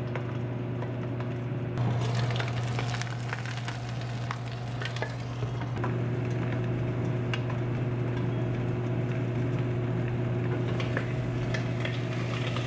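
Hairtail fish pan-frying in oil in a lidded frying pan, sizzling and crackling, with the spitting getting livelier about two seconds in. A steady low hum runs underneath.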